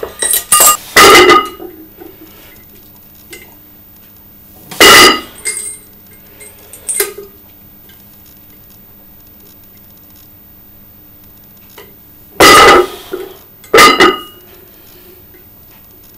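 Steel chain and the 20 kg iron weight plate hanging from it clanking as the plate is lifted and set down: sharp metallic clanks with a ringing tone, in clusters about a second in and near five seconds, then twice close together near the end.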